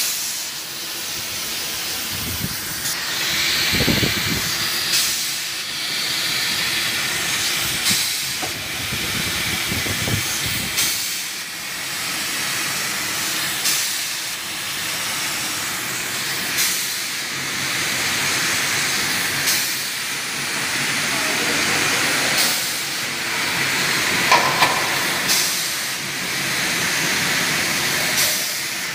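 Rotary beer bottle filling machine running, with a steady hiss of gas and a sharp click about every three seconds.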